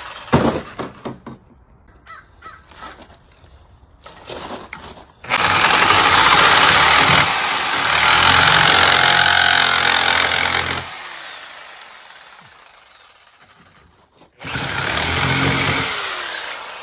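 Reciprocating saw with a metal-cutting blade sawing through galvanized steel gas pipe. A brief trigger pull just after the start, then a long run of about six seconds that winds down, and after a short pause a second run of about two seconds.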